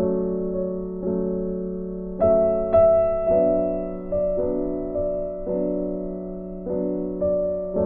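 Background music: gentle piano chords, each struck and left to ring, a new one about every second.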